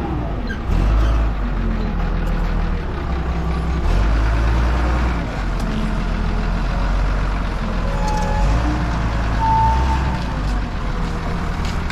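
Forklift engine running close by, its low drone rising and falling as it lifts a stack of sandwich panels. Two short beeps come late on.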